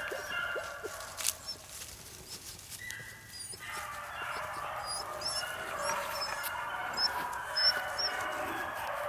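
A pack of beagles baying on a rabbit's trail, several dogs at once, swelling and more continuous from about four seconds in.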